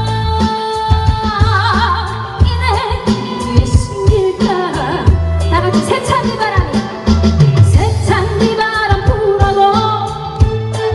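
A woman sings a Korean trot song live with vibrato over an amplified backing track, which has a steady bass beat and sustained accompaniment chords.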